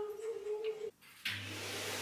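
Soft background music that cuts off about a second in; after a short gap a cleaning appliance's motor starts running with a steady hiss over a low hum.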